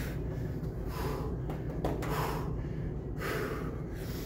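A man breathing hard through a fast set of kettlebell snatches, with forceful exhales about once a second.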